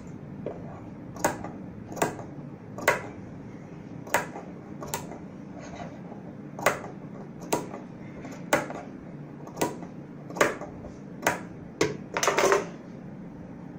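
Tailor's scissors snipping fabric, about a dozen short, sharp snips roughly a second apart and a quick run of snips near the end, clipping notches into a curved neckline seam allowance close to the stitching. A low steady hum lies underneath.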